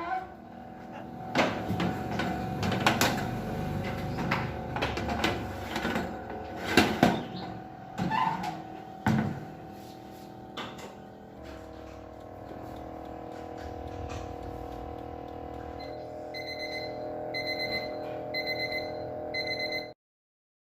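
Kitchen handling sounds: clatter and several sharp knocks over a steady hum. Near the end an electronic appliance timer beeps four times, about once a second.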